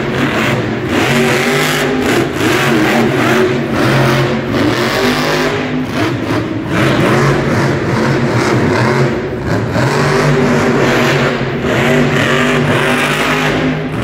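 Grave Digger monster truck's supercharged V8 revving hard, repeatedly rising and falling in pitch as the throttle is blipped during freestyle moves on the dirt.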